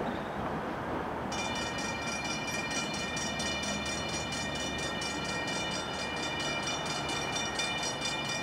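Safetran railroad crossing bell starting to ring about a second in, rapid evenly spaced dings that keep going, warning that a train is approaching the crossing.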